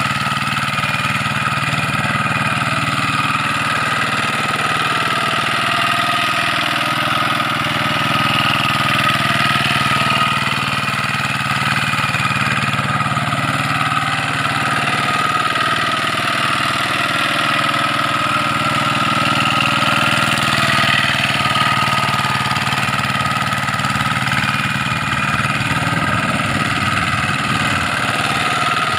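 Walk-behind two-wheel hand tractor's engine running steadily as the tractor tills a flooded rice paddy on cage wheels.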